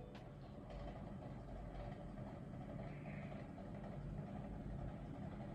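Faint steady low rumble of background noise, like distant traffic.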